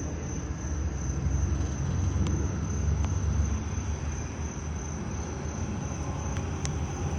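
Steady low rumble of a running car, with a thin steady high-pitched tone over it and a couple of faint ticks.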